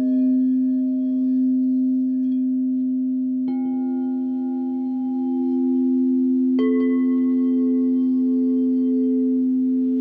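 Quartz crystal singing bowls, a set tuned to C, F and A at 432 Hz, ringing. A low bowl sustains a steady tone throughout. Higher bowls are struck twice, about a third and two thirds of the way in, and ring on with a slow pulsing.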